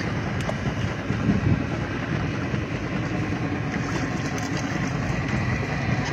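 A small fishing boat's motor running steadily under way, a continuous low rumble and rush.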